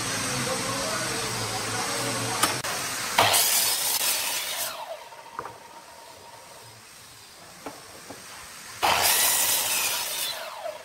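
Electric sliding miter saw running and cutting through a wooden board: a loud burst of cutting about three seconds in and again near the end, each followed by the blade winding down with a falling whine. Between the cuts, a couple of light knocks as the board is shifted on the saw table.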